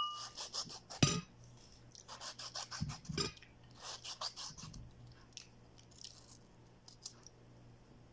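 Knife slicing a tomato on a ceramic plate: a series of soft cuts and scrapes, with a sharp ringing clink of the plate at the start and a knock about a second in.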